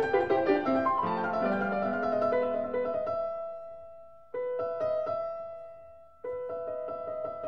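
Background piano music. Busy notes give way to held notes that fade out, then the music cuts back in abruptly, twice, about four and six seconds in.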